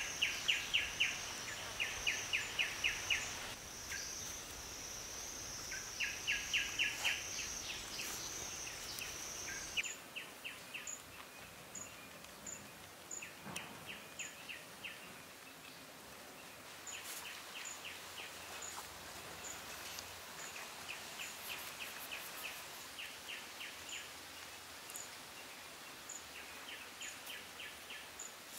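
Outdoor insect and bird ambience: a steady high-pitched buzz that stops about ten seconds in, and repeated short trains of rapid chirps, each a burst of several quick pulses, with faint regular high ticks in the later part.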